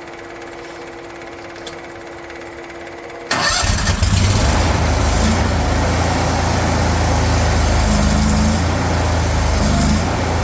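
Electric fuel pump humming steadily with one even tone while priming; about three seconds in the mini skid steer's engine starts abruptly and runs steadily.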